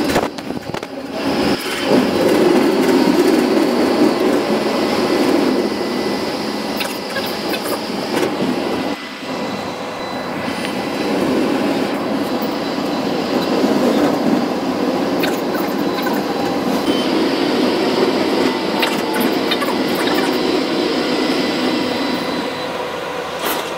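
Melbourne tram in motion, heard from inside the car: a steady rolling rumble of steel wheels on the rails and running gear, with scattered faint clicks from the track and a faint high ring in stretches. The level dips briefly about nine seconds in.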